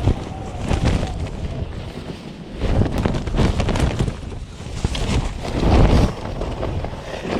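Strong wind buffeting the microphone in rumbling gusts that swell twice, about three seconds in and near the end, with scattered sharp crackles over them.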